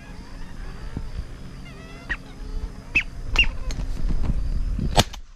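Wild ducks giving short whistled calls over a low rumble of wind on the microphone, with a single sharp bang about five seconds in.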